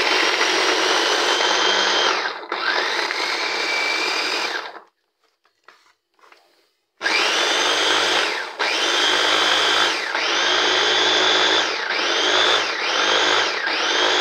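Small electric food chopper with a glass bowl chopping onion and tomato fine, its motor whirring up and cutting off in pulses. There are two runs of about two and a half seconds each, a pause of about two seconds near the middle, then six shorter pulses, getting quicker toward the end.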